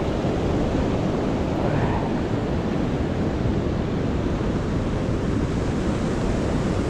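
Steady rush of sea and wind buffeting the microphone, with no distinct events.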